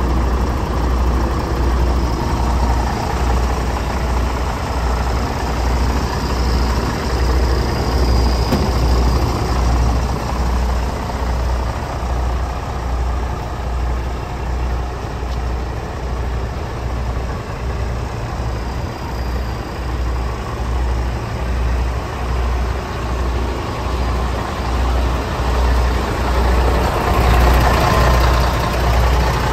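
MAN 33.403 tipper truck's diesel engine idling steadily, with an even low throb.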